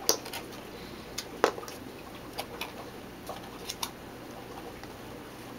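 Clicks and taps of a 3D-printed plastic algae-scrubber case being handled and pulled apart at its magnet-held halves, with its cardboard shipping separator. Irregular knocks, the two sharpest near the start and about a second and a half in.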